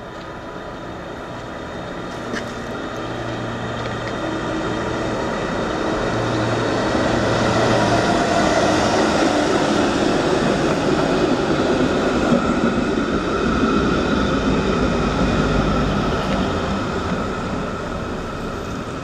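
Historic Bern standard tram, motor car 107 with trailer 337, running on street rails as it approaches, passes close and draws away. Its rumble swells to a peak about halfway through, then fades.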